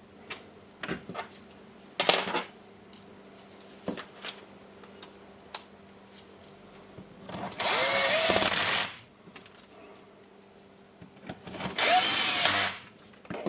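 Cordless power screwdriver runs twice, about a second and a half each time, its motor whine rising and then falling as it drives screws. Light clicks of parts being handled come between the runs.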